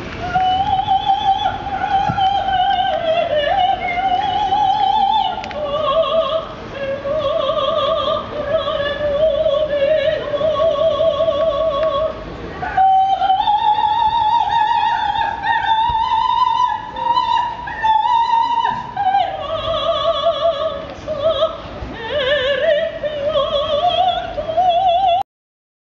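A woman singing opera in a high voice, holding long notes with a wide vibrato. The singing cuts off suddenly near the end.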